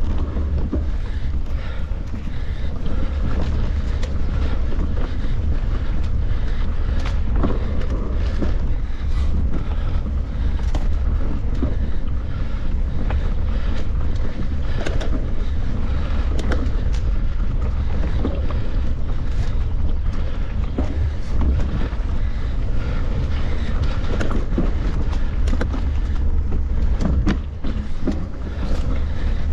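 Heavy wind rumble on the microphone with frequent clicks and rattling knocks, typical of a mountain bike ridden at speed over rough trail.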